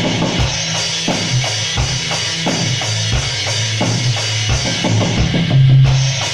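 Live band jamming: a drum kit keeps a steady beat, with a bass drum hit about every 0.7 s, under sustained low instrument notes. The recording quality is poor.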